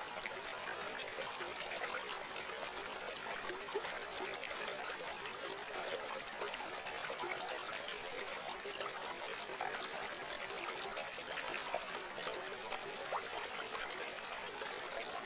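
Steady trickling, flowing water: a continuous hiss with fine crackle that does not change.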